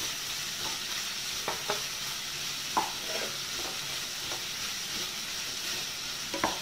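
Sliced onions sizzling in hot oil in a pot while being stirred with a wooden spatula, which scrapes and knocks against the pot several times, most sharply about three seconds in and again near the end. The onions are being sautéed until soft.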